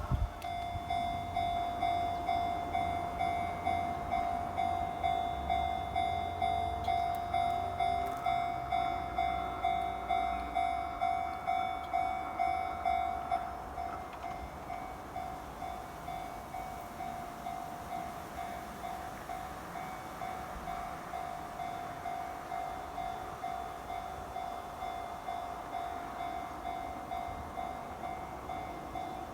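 Japanese railway level-crossing warning bell ringing in a steady, even rhythm. Over the first half a train rumbles through. About 13 seconds in the bell drops in loudness and keeps ringing more quietly.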